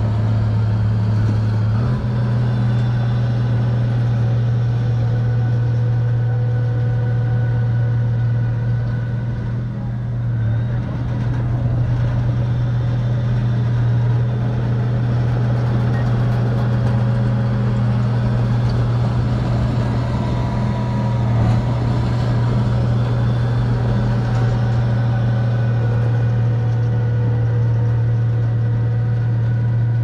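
Crawler bulldozer's diesel engine running steadily with a low, even hum while it pushes sand.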